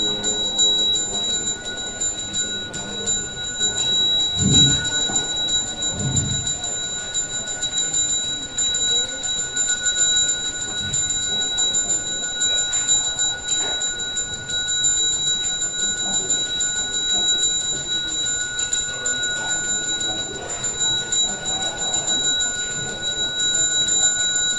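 A ritual hand bell rung without pause, giving a steady ringing held at one pitch with higher overtones. Two low thuds come about four and six seconds in.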